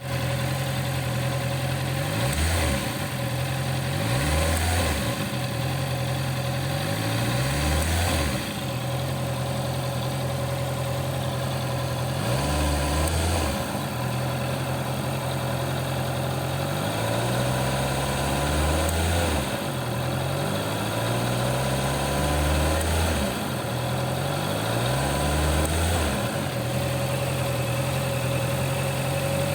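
Honda CB650R's inline-four engine idling and being blipped with the throttle about eight times, each rev rising and falling back to idle. The rider is demonstrating an abnormal short 'dia' sound that he says comes at a certain throttle opening.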